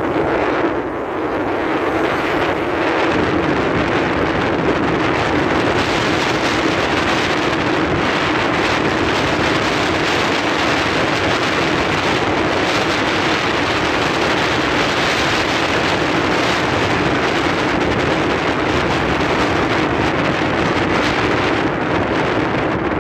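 Scooter engine running at a steady cruising speed, with wind rushing over the microphone as it rides.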